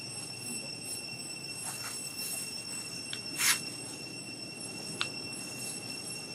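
A steady, high-pitched drone of several even tones holds throughout, typical of insects in the surrounding forest. About three and a half seconds in, a short sharp squeak rises well above it, and a brief click follows about a second and a half later.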